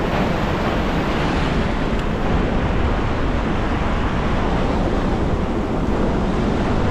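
Ocean surf washing steadily, with wind buffeting the microphone as a low rumble underneath.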